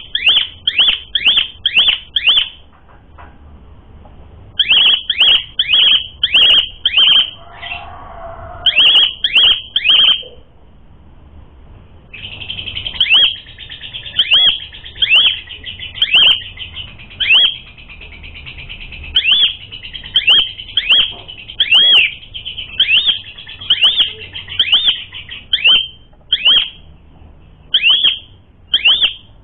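Asian pied starling (jalak suren) singing in loud runs of sharp, downward-sliding whistles, two or three a second, broken by short pauses. A harsher chatter comes in a third of the way through, and a buzzy trill runs under the whistles in the middle.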